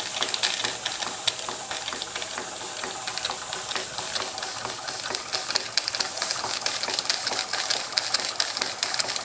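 Stuart model beam engine running on live steam at about 40 psi, freshly overhauled and retimed: a fast, steady ticking clatter of its moving parts over a steady hiss.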